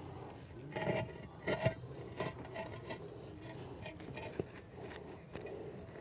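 Hollow hexagonal concrete block scraping and knocking against the blocks beneath as it is shifted into place on a honeycomb retaining wall. The loudest scrapes come in the first two seconds, with smaller knocks after that.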